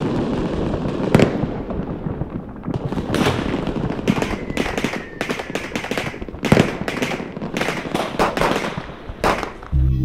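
Fireworks going off: a rapid, uneven series of sharp bangs and crackles over a continuous crackling hiss, with a faint falling whistle about four seconds in.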